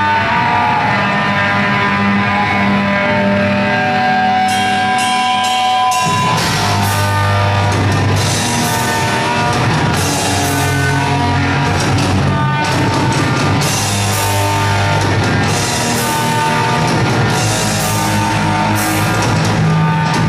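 Heavy metal band playing live. The music has a sparser opening, then the drums and bass come in at full force about six seconds in.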